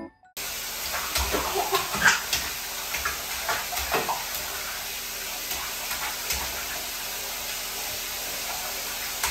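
Water running steadily into a bathtub as it fills, with intermittent small splashes from a toddler's hands in the shallow water during the first few seconds.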